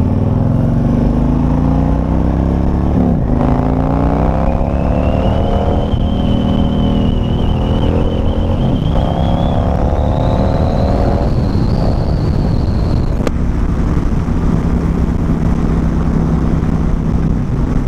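Harley-Davidson CVO's V-twin engine accelerating through the gears, its pitch climbing and dropping back at each of several shifts, then running steadily at cruising speed. A thin high whistle rises over the engine from about four seconds in until about thirteen seconds in, when it cuts off with a click, over a steady rush of wind on the microphone.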